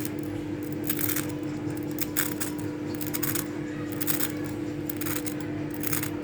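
Light, scattered metallic clinks of kitchen utensils, about half a dozen, over a steady low hum.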